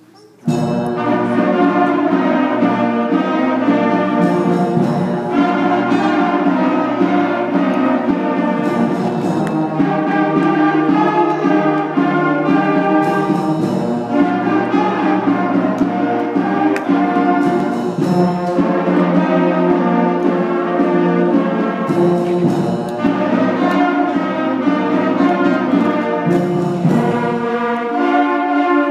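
A sixth-grade concert band of flutes, clarinets and brass, with a tuba among them, playing a piece together. It comes in all at once about half a second in, with a bass line that moves to a new low note every few seconds.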